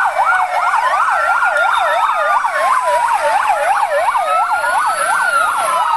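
Several fire engine sirens sounding at once: one in a fast yelp, about four rises and falls a second, with slower wails gliding up and down over it.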